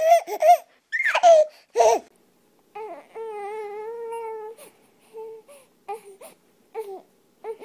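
Infant crying: a long wail starting about three seconds in, then short, broken cries.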